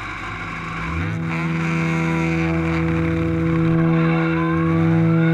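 Onboard sound of a 1970 Lola T210's Cosworth FVC four-cylinder racing engine, revs rising about a second in and then holding at a steady pitch. A faint rising tone comes in near the end.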